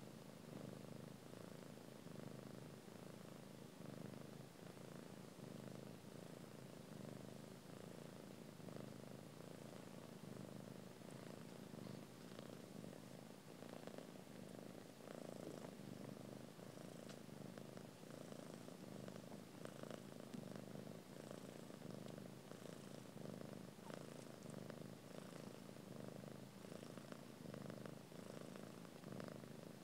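Cat purring, soft and steady without a break.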